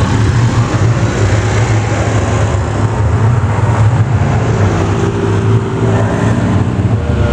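A vehicle engine running steadily, making a loud, low, even drone.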